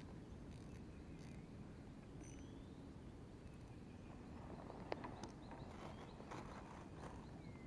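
Quiet outdoor ambience with a few short, rising bird chirps. About five seconds in, a sharp click, then a couple of seconds of scattered clicks and rattles from handling gear.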